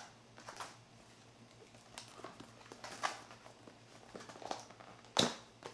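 Small cardboard box handled and turned over in the hands: faint scattered taps and scuffs of cardboard, with one louder, short, sharp scrape or tap about five seconds in.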